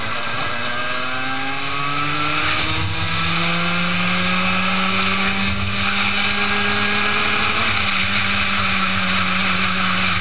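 Two-stroke racing kart engine at full throttle, its pitch climbing steadily for about eight seconds as the kart accelerates down a straight, then dropping as the throttle comes off near the end for the next corner.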